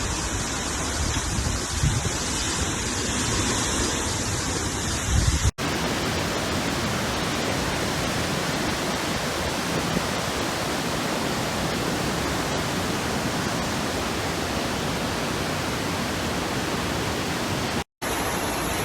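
Steady rushing water noise, broken off briefly and resuming about five and a half seconds in and again near the end.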